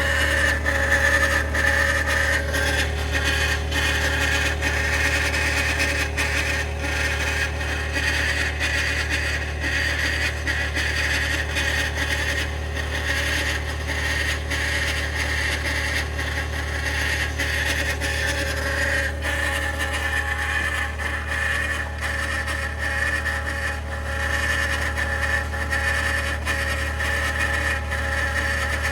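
2021 Ford F-150 PowerBoost's 3.5-litre twin-turbo V6 hybrid powertrain running steadily after a remote cold start in about minus 20 cold, with a constant low hum and a steady whine over it. The owner takes this for a cavitating, grinding noise on cold start.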